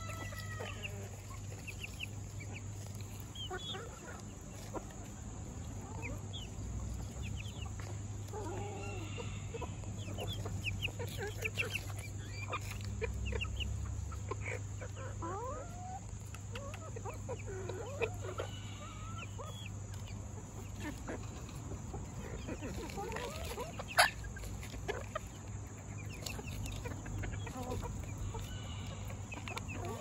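Silkie chickens clucking in short, scattered calls, with one sharp click about two-thirds of the way through.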